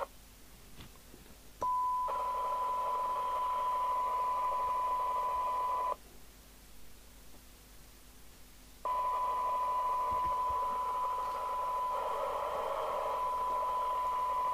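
A CB radio's loudspeaker giving a steady 1 kHz test tone in hiss, which mutes and comes back twice: the squelch is opening and closing on a weak test signal as its low-end threshold is set. The tone is off at the start, comes in about two seconds in, cuts out about six seconds in and returns about nine seconds in.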